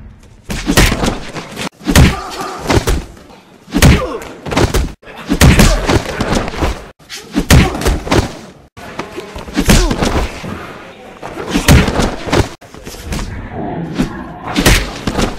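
A fast series of heavy thuds and slams, the hits and falls of a martial-arts fight, coming roughly once a second with shouts between some of them. The sound cuts off abruptly several times.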